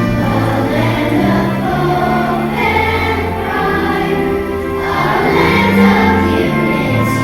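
A choir singing slow, held notes with instrumental accompaniment.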